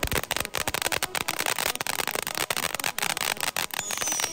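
Ground firework fountains spraying sparks with dense, rapid, irregular crackling pops. Near the end a thin whistle comes in, falling slowly in pitch.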